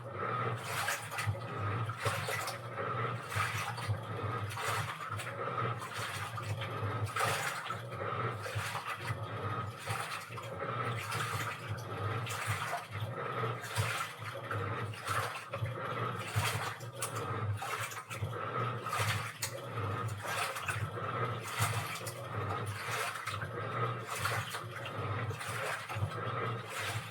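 Washing machine running through its wash cycle: water sloshing in repeating swishes as the drum turns, over a steady motor hum.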